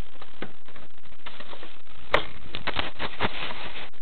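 Steady hiss from a small onboard camera microphone, then a run of clicks and knocks from about two seconds in: handling noise as the camera is moved.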